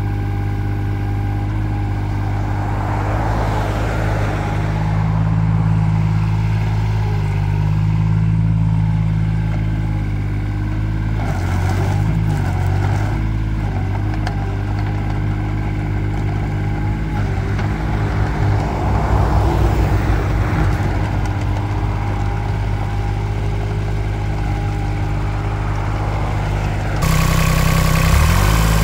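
Komatsu PC05 mini excavator's small diesel engine running steadily, its note shifting under load a few times as the boom and bucket are worked. About a second and a half before the end it turns louder and brighter, heard close up at the open engine bay.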